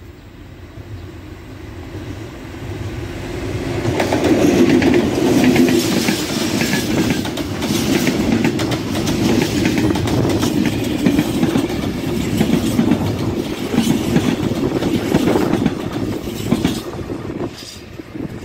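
TCDD DE 24000-class diesel-electric locomotive hauling a container freight train past: the locomotive's running grows louder over the first few seconds, then the wagons go by with a steady rumble and a rapid clatter of wheels over the rail joints, which eases off near the end as the last wagon passes.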